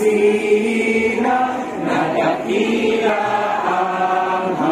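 Many voices singing a slow song together in long held notes, with a short break about two seconds in.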